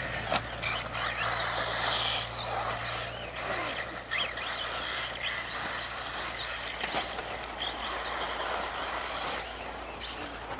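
Electric 1:10 RC buggy (Team Associated RC10B4) motor and gears whining, rising and falling in pitch as the car accelerates and slows around a dirt track, over the hiss of its tyres on the dirt.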